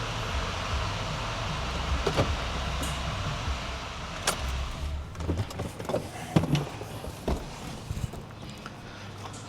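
6.6-litre Duramax V8 turbo-diesel in a 2018 Chevrolet 2500HD idling just after an oil change, running to circulate the fresh oil and bring up oil pressure. The steady running sound drops away about halfway through, followed by several separate clicks and knocks.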